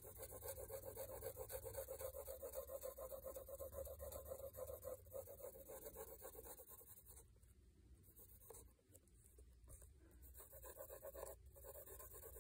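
Pencil shading on paper: faint, quick back-and-forth scratching strokes, dense for about the first seven seconds, then sparser with short pauses.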